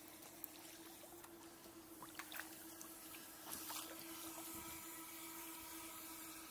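Faint water sounds around a kayak: the paddle dipping and dripping, with a few small splashes in the middle and water lapping at the hull. A faint steady hum runs underneath.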